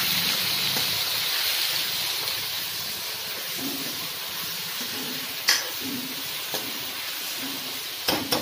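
Onions and tomatoes sizzling in hot oil in a kadhai while being stirred with a spatula. The spatula knocks sharply against the pan about five and a half seconds in and twice near the end.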